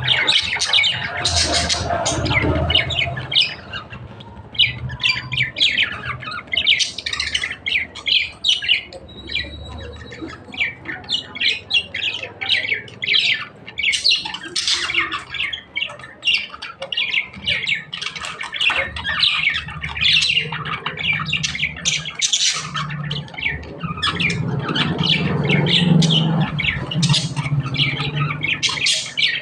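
Budgerigars chattering in a rapid, continuous stream of short squawks and chirps. A low hum sits underneath at the start and again near the end.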